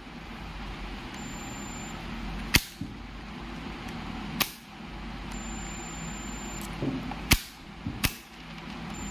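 Four sharp clicks from the operating mechanism of a 100 A four-pole moulded case circuit breaker, snapping as it is switched by hand during a continuity check of its contacts. The last two come less than a second apart.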